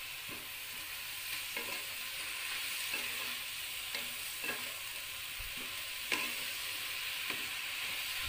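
Napa cabbage and tomato sizzling in a frying pan without oil, in their own released juices, while a spatula stirs them, scraping against the pan about once or twice a second over the steady sizzle.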